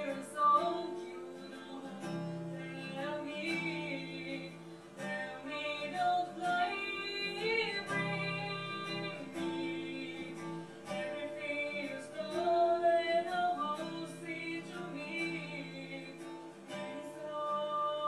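A woman singing a melody to an acoustic guitar accompaniment, the guitar strummed in steady chords under her voice.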